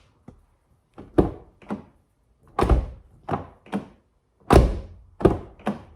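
2012 Fiat 500 door being opened and shut to test a newly fitted outside door handle: three solid thunks of the door closing, about two seconds apart, each followed by two lighter clacks from the latch and handle.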